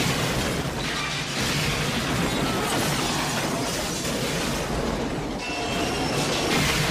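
Passenger train speeding along the track: a dense, steady rumble and rattle of the cars on the rails.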